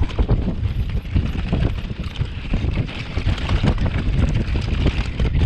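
Wind buffeting the microphone over the rumble of mountain-bike tyres rolling on dry dirt and stones, with many quick knocks and rattles from the bike as it runs over bumps.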